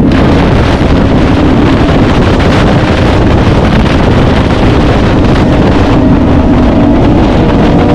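BMW inline-four superbike running at speed, a steady engine note that rises and falls slightly, buried under heavy wind buffeting on the microphone.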